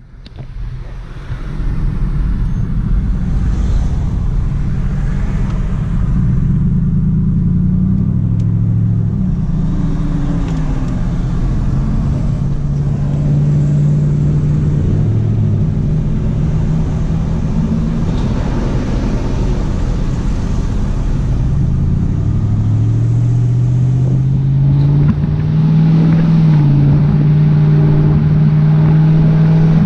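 Car engine and road noise heard from inside the moving vehicle. The engine note rises several times as it pulls away and accelerates, then holds steady near the end.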